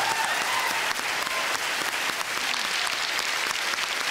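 Audience applauding, steady and dense clapping.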